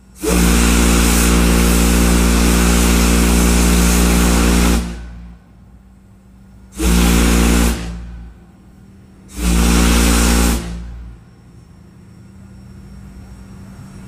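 A home-built steel organ-pipe steam whistle with a 12-inch by 60-inch bell blows three blasts: one long blast of about four and a half seconds, then two short ones. Each has a very deep bass note under a heavy hiss of steam.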